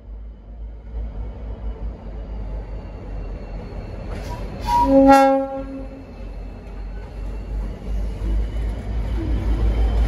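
A short blast, under a second long, on an N class diesel locomotive's Leslie RS5T horn about halfway through, over the low rumble of the locomotives' diesel engines. The engine rumble grows louder near the end as the locomotive draws alongside.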